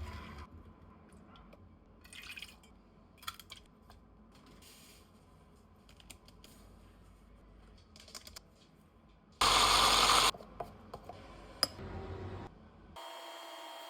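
Scattered light clicks and taps, with a short, loud burst of noise about nine and a half seconds in.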